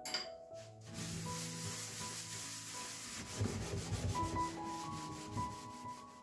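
A sponge scrubbing the inside floor of an oven coated in cleaning paste, in quick repeated back-and-forth strokes, starting about a second in. Soft background music plays underneath.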